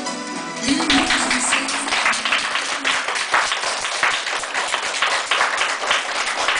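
Backing music ends within the first second, then an audience claps steadily.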